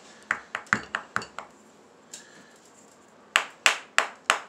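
A hammer tapping a hand-held plaster block, knocking off small chunks and powder. There is a quick run of about six light taps, a pause, then a steady series of louder, sharp strikes about three a second.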